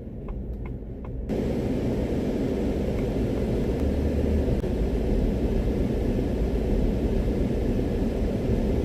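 Road and wind noise inside a moving vehicle, jumping suddenly much louder about a second in and then running steady and rumbly. A few light, evenly spaced ticks come before the jump.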